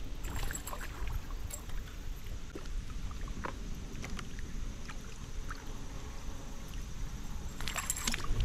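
Small knocks and clicks of gear moving on a kayak over a steady low rumble, with a quick run of clicks near the end.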